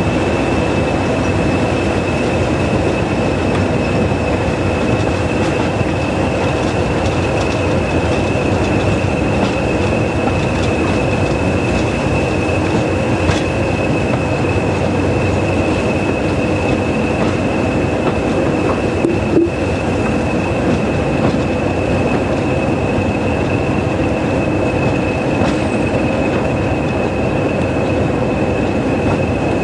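A pair of Class 20 diesel locomotives with English Electric eight-cylinder engines running with a train. It is a loud, steady engine and rail noise with a constant high whistle over it.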